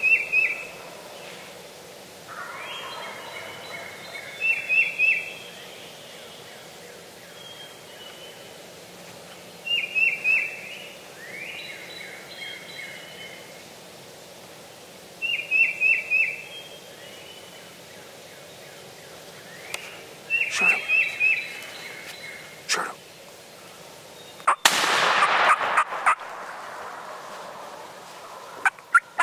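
Wild turkey gobblers gobbling: a rattling gobble about every five seconds, with fainter calls between. Near the end comes a louder, rougher burst lasting about a second and a half.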